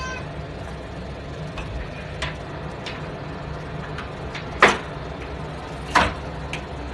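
A cat jumping up at an interior door and hanging on its lever handle: a few light knocks, then two sharp clacks of the handle and latch about a second and a half apart as the door is pulled open. A steady low hum runs underneath.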